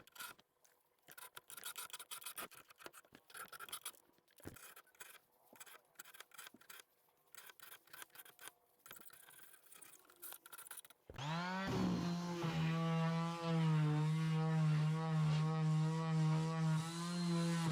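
A hand scraper rasping across the desk's wooden surface in short irregular strokes, taking off the old finish. About eleven seconds in, an electric sander starts up and runs with a steady hum, louder than the scraping.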